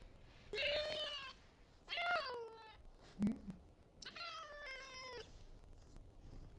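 Domestic cat meowing three times, each meow about a second long, the last two dropping in pitch at the end. A short knock comes between the second and third meows.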